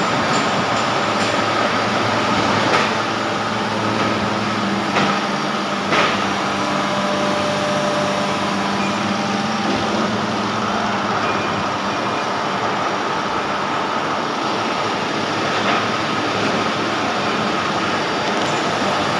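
Hydraulic oil chiller running with a steady mechanical hum. A few short knocks come in the first several seconds.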